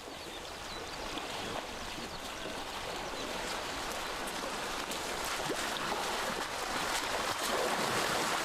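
River water rushing and splashing, a steady hiss that grows gradually louder.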